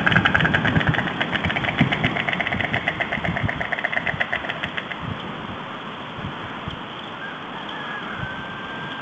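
White stork bill-clattering: a fast, even run of dry bill clacks that fades out about five seconds in.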